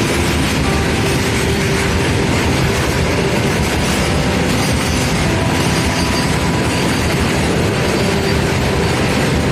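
Long freight train of covered goods wagons rolling past at close range: a loud, steady noise of steel wheels running over the rails, with faint steady tones above it.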